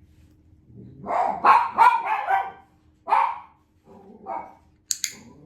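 Adult dogs barking: a quick run of loud barks, then a single bark and a couple of weaker ones. Two sharp, high clicks come near the end.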